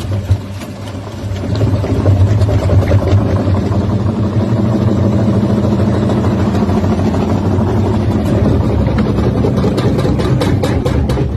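Daewoo DWD-FT1013 washing machine spinning up to about 450 rpm in test mode with a 1-litre water bottle inside as an unbalanced load: a loud, steady low hum with rattling that builds over the first couple of seconds. A quick run of knocks comes near the end.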